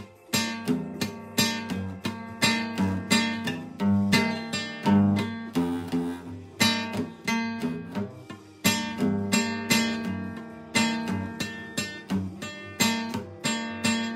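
Acoustic guitar played solo, chords strummed in a steady rhythm, as the instrumental introduction before the singing begins.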